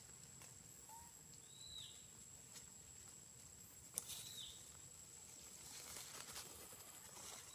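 Faint forest ambience: a bird's short high chirp repeating about every two and a half seconds over a steady high whine, with rustling in dry leaf litter from macaques foraging. A single sharp click about four seconds in.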